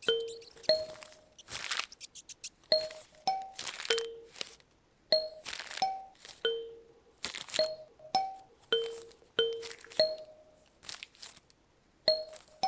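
Kalimba playing a slow melody of single plucked notes, each ringing briefly and dying away, with short bursts of paper rustling and crinkling laid over it.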